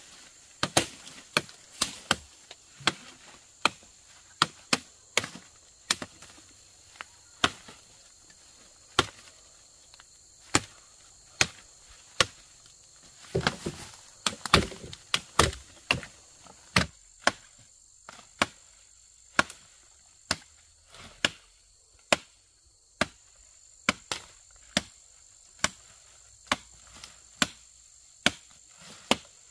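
Machete chopping dry branches, sharp blows about one to two a second, with a denser patch of knocking and crackling about halfway through. A steady high insect drone runs underneath.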